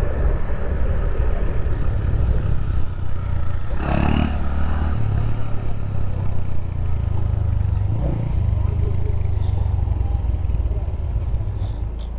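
Motorcycle running steadily while being ridden, a continuous low engine rumble with some clatter from the rough road. A brief louder noise cuts in about four seconds in, and a smaller one about eight seconds in.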